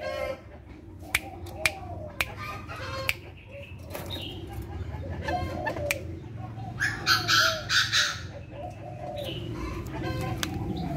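Common moorhens calling in a cage: short arched calls and sharp clicks, with a louder rasping stretch of four quick pulses about seven seconds in.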